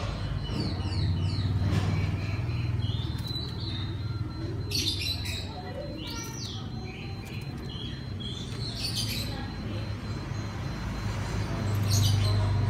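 Oriental magpie-robin (kacer) singing: a string of varied whistled chirps and quick down-slurred notes, with wing flutters as it moves about the cage. A low steady hum sits underneath.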